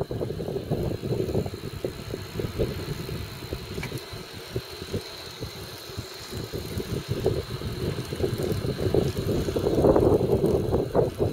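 Wind buffeting the microphone and road rumble from a bicycle being ridden at night, an uneven fluttering roar that eases a little in the middle and rises again near the end.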